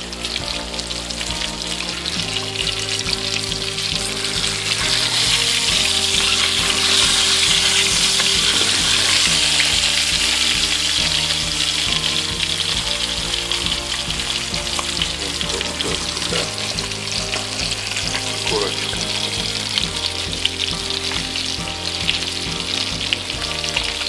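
Whole crucian carp frying in hot oil in a frying pan: a steady sizzle with small spits and crackles, loudest between about five and ten seconds in.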